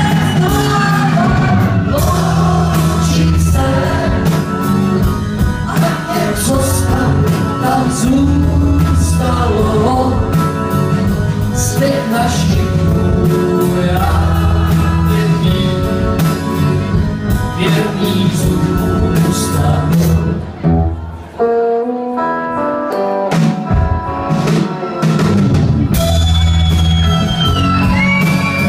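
Live rock band playing: drum kit and a pulsing bass line under guitars, with singing over it. About 21 seconds in, the bass and drums drop out briefly before the band comes back in.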